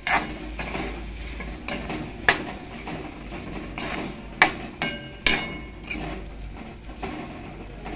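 Metal spatula stirring cauliflower and peas in a metal kadhai, scraping and knocking against the pan with several sharp clanks; one knock rings briefly about five seconds in.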